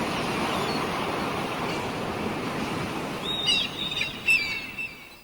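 Steady rush of sea and wind for a sailing yacht, with a few short bird chirps between about three and a half and four and a half seconds in.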